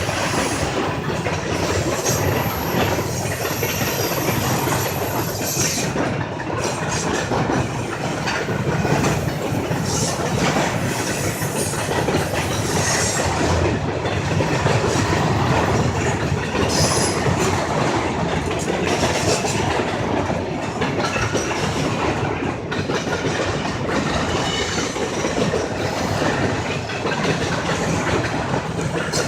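Freight train cars rolling past at close range: a steady rumble with steel wheels clicking over rail joints, and a thin high wheel squeal in the first few seconds.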